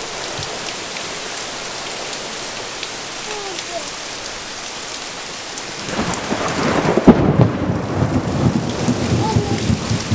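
Steady rain falling, then about six seconds in a thunderclap breaks with a sharp crack and rolls on, rumbling for several seconds over the rain.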